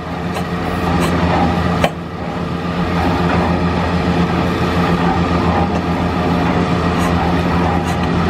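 Old East German water-hopper-cooled stationary engine running with a steady low drone during a starting attempt, building up over the first three seconds and then holding. A single sharp pop about two seconds in.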